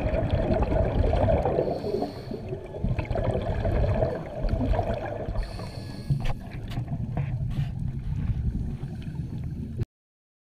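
Muffled underwater sound of a scuba dive recorded through a camera housing: a low rumble with the bubbling of divers' exhaled air, two short hisses and a few clicks. It cuts off abruptly near the end.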